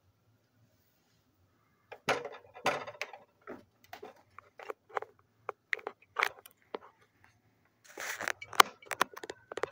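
Handling noise of over-ear headphones being fitted on the head close to the phone's microphone: a run of irregular clicks, taps and rustles, starting about two seconds in after near silence.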